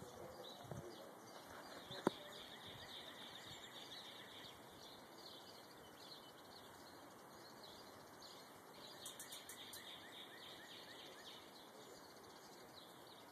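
Faint background birdsong: many short, high chirps repeating throughout. A single sharp click stands out about two seconds in.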